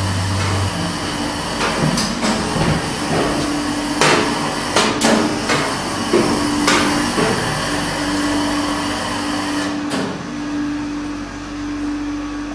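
Several sharp knocks and clanks, the loudest around four and five seconds in, over a steady hum that drops out and returns a few times.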